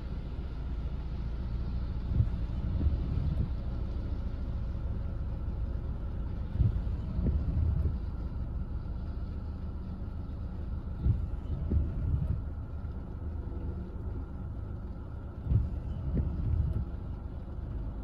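Low steady rumble of a car stopped with its engine running, heard inside the cabin. Intermittent windshield wipers sweep about every four and a half seconds, each sweep a pair of short soft thumps.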